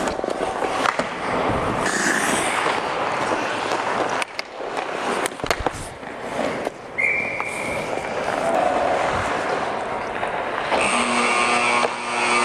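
Ice hockey skates scraping and carving the ice around the net, with sticks and puck clattering and sharp knocks from shots. Near the end a steady horn sounds, marking the end of the first period.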